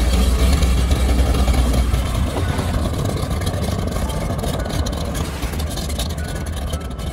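Single-engine floatplane's propeller engine running as the plane taxis on the water, a steady engine sound that eases slightly as it moves away.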